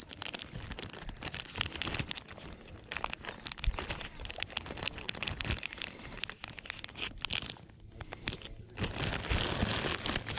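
Plastic bait packets and zip-top bags crinkling as hands rummage through them, with a brief lull near the end.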